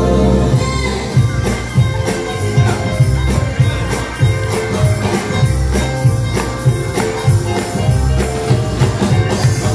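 Stage-show music: a held chord gives way about a second in to an upbeat number with a steady, punchy percussion beat.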